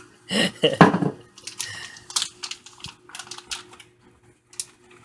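A voice briefly near the start, then a quick irregular run of light clicks and taps from food being handled in the kitchen, over a faint steady hum.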